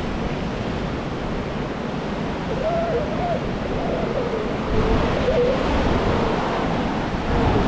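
Northern elephant seals, females and young, giving wavering calls from about two and a half seconds in, over the steady wash of surf.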